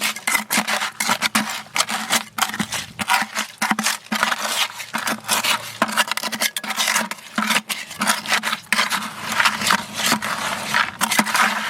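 Steel trowel scraping through wet concrete in a quick, irregular run of short gritty strokes, as the concrete is worked and packed into cracks.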